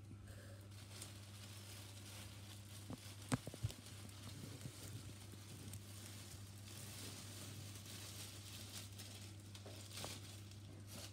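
Faint rustling and a few light knocks over a steady low hum.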